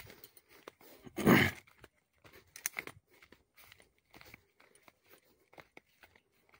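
Footsteps crunching and rustling along a footpath through leafy undergrowth, in short irregular steps, with one louder rustling crunch about a second in.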